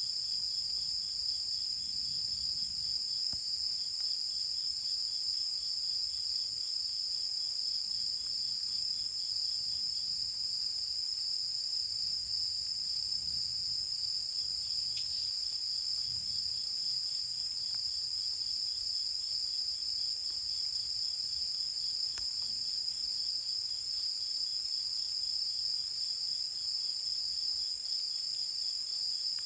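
Night chorus of crickets and other insects: a steady, high-pitched continuous trilling, with a fainter, rapidly pulsing chirp from another insect beneath it.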